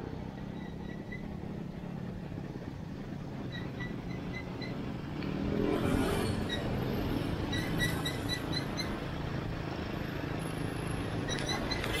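Motor road traffic: a steady low rumble of cars and motorbikes running, growing louder for a moment about six seconds in as a vehicle passes.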